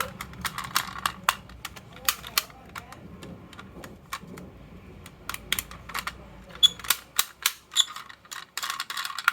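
Marbles clicking and clattering as they run down a marble run track: many sharp, irregular clicks with a dense rattle near the end, over a low hum that stops about seven seconds in.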